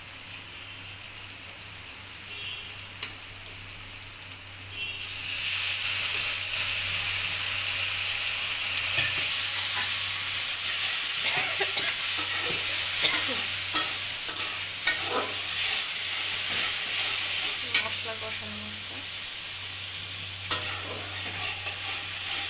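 Potato and drumstick pieces frying in hot oil in an iron kadai, sizzling, while a metal spatula stirs and scrapes them with short clinks against the pan. About five seconds in the sizzle suddenly gets much louder and stays loud.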